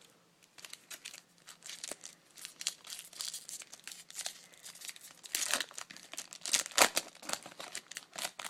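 Foil trading-card pack wrapper being torn open and crinkled by hand: an irregular crackling that starts about half a second in and is loudest a little past the middle.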